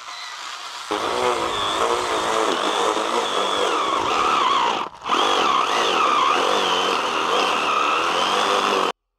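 Small electric chainsaw of a bionic arm prosthesis cutting into an artificial skull, its motor and chain whining with a wavering pitch. It stops briefly about five seconds in, runs again, then cuts off just before the end.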